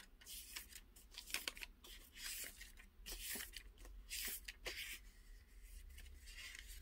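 Quiet handling noise as things are searched through: a run of short rustles and scrapes, with two longer swishes near the middle.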